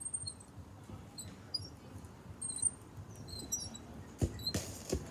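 Small birds chirping and twittering, with a few dull thumps and a short scuff about four seconds in.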